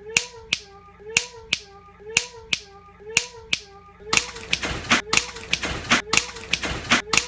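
Electronic beat intro: a looped pattern of sharp clicks in pairs, once a second, over a short rising-and-falling pitched tone. A fuller, noisier layer of the beat joins about four seconds in.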